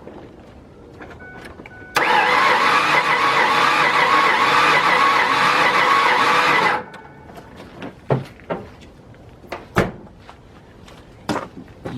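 Starter cranking the Ford Ranger's V6 engine steadily for about five seconds, from about two seconds in, then stopping abruptly, without the engine catching. It is cranked for a compression test, and the tested cylinder shows zero compression, which the mechanic takes for a blown head gasket or cracked head.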